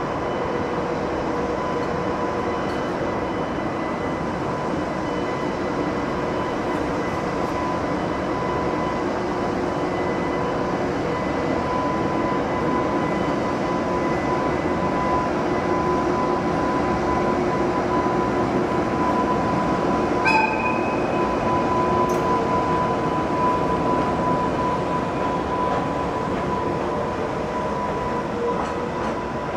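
EH200 electric locomotive passing slowly while hauling an E6 Shinkansen set, its cooling blowers whining steadily over the rumble of wheels on rail. One sharp clank with a short squeal about twenty seconds in.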